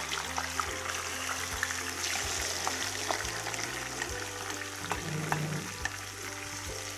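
Marinated chicken sizzling as it fries in hot ghee in a pan, with scattered light clicks, over background music.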